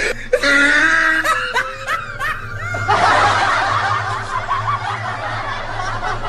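High-pitched laughter in short, rising pulses. About three seconds in, a rough, noisy hiss takes over, over a steady low hum.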